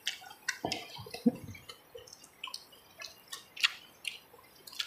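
Irregular wet clicks and lip smacks of people eating rice and fried fish with their hands, about a dozen short sharp sounds, the loudest about a second in.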